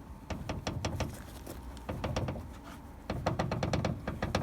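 Hood of a Daewoo Lanos rattling on the move: a run of sharp knocks over low road rumble, coming quicker and louder from about three seconds in. The owner traces the knocking to the hood hinge, which he thinks needs re-riveting.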